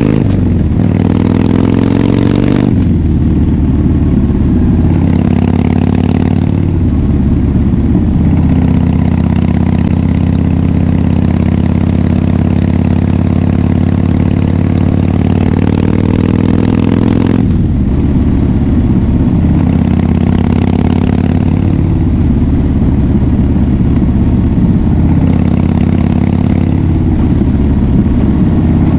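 Harley-Davidson Fat Bob V-twin engine running through a KessTech aftermarket exhaust while the bike is ridden. The engine note rises over the first couple of seconds, changes abruptly about three seconds in and again a little past halfway, and otherwise holds a fairly steady pitch.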